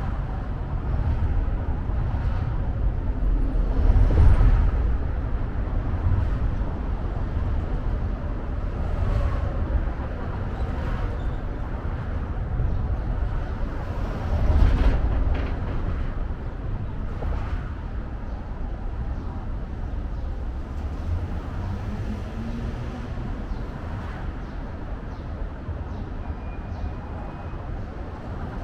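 Outdoor city ambience dominated by a steady low rumble of road traffic, swelling twice, about four seconds in and again about fifteen seconds in.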